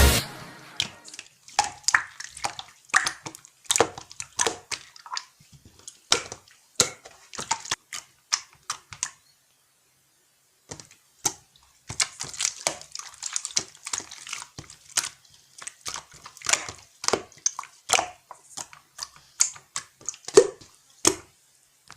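Irregular light clicks and taps, several a second, with a pause of about two seconds near the middle.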